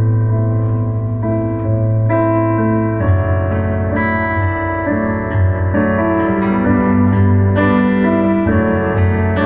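Electric keyboard playing sustained chords over a held low bass note, the chords changing every second or so.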